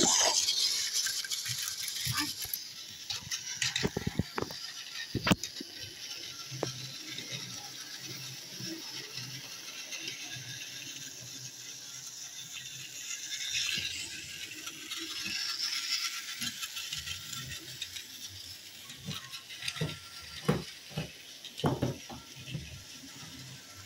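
Battery-powered TrackMaster and Tomy toy trains running on plastic track: a steady whir of the small gear motors and rattle of the wheels, loudest at the start as a train passes close by, with scattered plastic clicks and a few louder knocks near the end.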